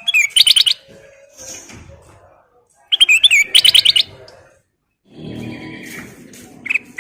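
Kutilang emas bulbul singing: two short bursts of rapid, clear whistled notes, one at the start and another about three seconds in, with a brief note near the end. A fainter low background rumble comes in for the last two seconds.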